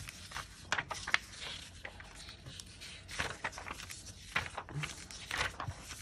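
Sheets of thin patterned craft paper being handled and laid down one after another by hand: an irregular run of short paper rustles and scrapes.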